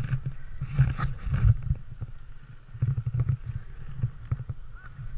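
Wind buffeting a skydiver's camera microphone, a low rumble that comes in uneven gusts, with a few faint knocks and rustles.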